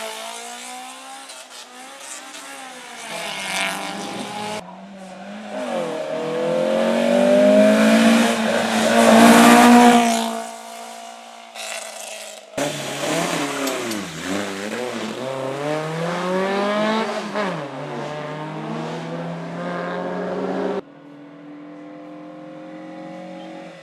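Hill-climb race cars at full throttle, engines revving up and cutting back through gear changes as they pass. The sound cuts abruptly several times from one car to the next, and the loudest pass comes about eight to ten seconds in.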